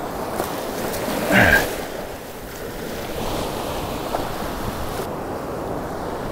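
Gulf surf washing in over the sand, with wind buffeting the microphone. A short louder sound stands out about a second and a half in.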